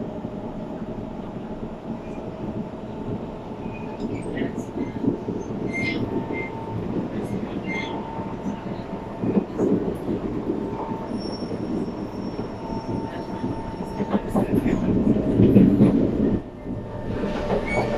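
Inside a moving SMRT metro train car: steady running rumble, with wheels squealing faintly now and then. The noise builds near the end, then drops suddenly.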